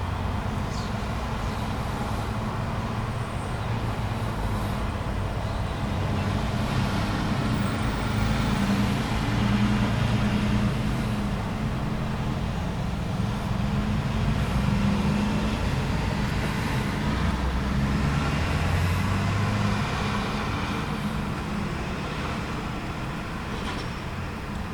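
Traffic at a busy intersection: a steady rumble of passing cars, trucks and buses, with heavier vehicle engines swelling and fading several times.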